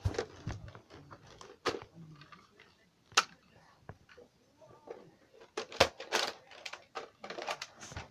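Irregular plastic clicks and clacks as attachments are unclipped and pulled off a Nerf Modulus blaster, with a cluster of quick clicks in the second half.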